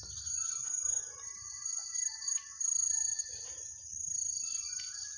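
Crickets and other night insects trilling in a steady, high, unbroken chorus.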